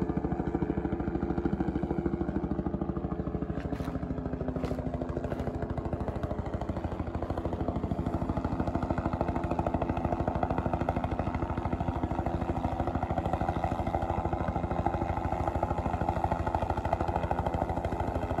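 Helicopter flying low overhead and nearby: a steady, fast, even rotor chop over engine noise, growing a little stronger about halfway through.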